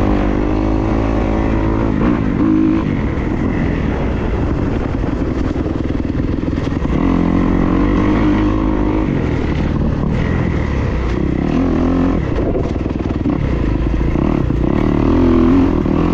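Dirt bike engine running under changing throttle, its pitch rising and falling every few seconds as the rider accelerates and eases off, with a few sharp clacks.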